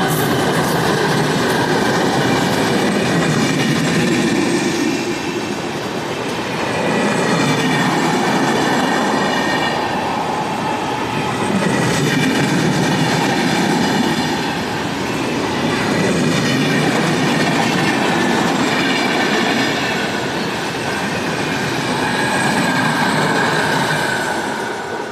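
Train running on the rails: a steady rumble and clatter of wheels over the track, with high squealing wheel tones above it, swelling and easing every few seconds.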